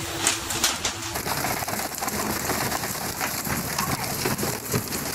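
Water splashing and spraying along the hull of a pole-and-line tuna fishing boat, with a few sharp knocks in the first second; the sound changes abruptly about a second in to a denser, rain-like splashing.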